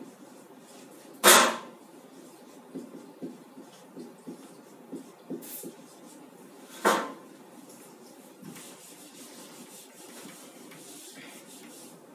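Marker writing on a whiteboard: a scatter of light taps and scratches from the pen strokes, with two sharp knocks, about a second in and again about seven seconds in.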